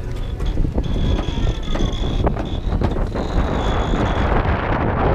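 Wind buffeting the microphone aboard a sailing yacht, a dense rushing noise that swells toward the end, with a thin steady high whine for about three seconds from about a second in.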